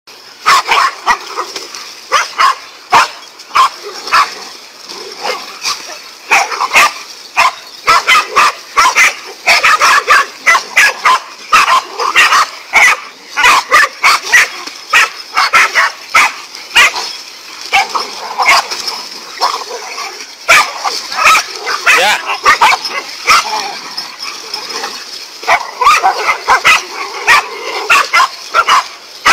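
A pack of dogs barking and yelping over one another at a large snake they are attacking, several short barks a second with occasional whimpers.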